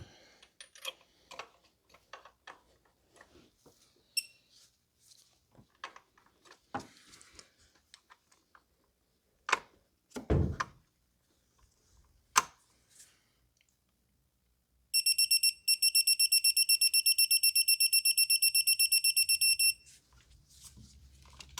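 Mac Tools 3/8-inch electronic torque wrench beeping rapidly for about five seconds, a high pulsing alert that signals the set torque of 17 has been reached on a spark plug. Before it, a few light clicks and knocks of the socket and wrench.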